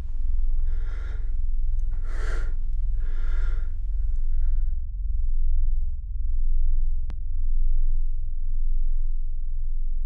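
A person breathing heavily, four loud breaths one after another, over a low steady hum. The breathing stops about five seconds in, leaving only the hum, with a single sharp click a couple of seconds later.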